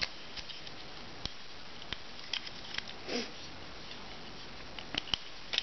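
Faint, scattered small clicks and scratches of a roll of shipping tape in a plastic tape dispenser being handled while someone picks for the lost end of the tape.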